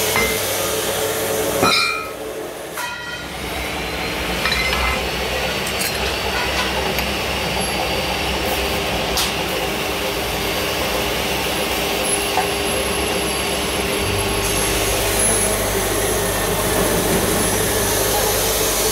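Pillar drill running under load, its bit boring into a thick iron bar with a steady motor hum and grinding cut. It goes briefly quieter about two seconds in, with a few sharp clinks, then settles back into the steady cut.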